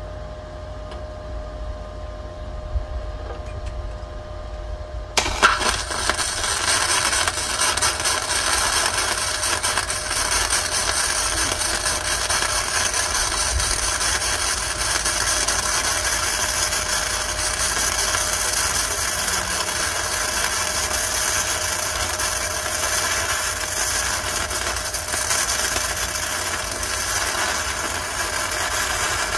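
Flux-core wire welding on a Hzxvogen multi-process MIG welder: after about five seconds of low hum the arc strikes suddenly and crackles steadily from then on.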